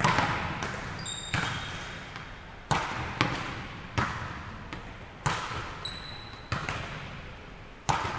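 Volleyballs being hit and bouncing on a hardwood gym floor: sharp smacks every second or so, each echoing in the large hall. Two brief high squeaks are heard between them.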